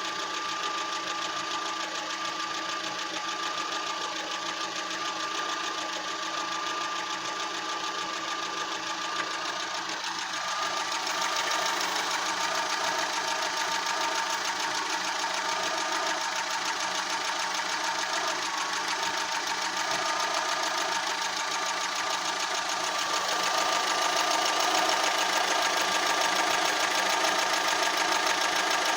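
Fiat Punto engine idling roughly: a steady running note that gets louder about a third of the way in and again near the end. The owner reports the idle shakes the engine at random intervals even after new spark plugs, leads and air filter.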